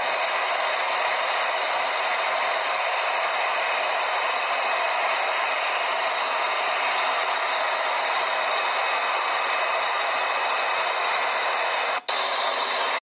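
Air borewell drilling rig running, with a loud, steady rush of compressed-air noise. It drops out for an instant about a second before the end, then cuts off suddenly.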